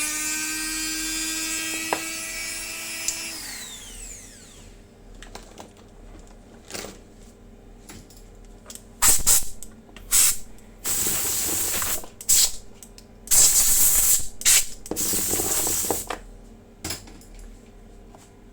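Airsoft brushless motor spinning at speed with a steady high whine, then cut off about three seconds in and winding down in a falling whine. After that come a series of short hissing, rattling bursts.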